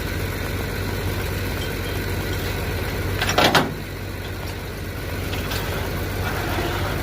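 Tow truck engine idling steadily, with a brief louder burst of noise about three and a half seconds in.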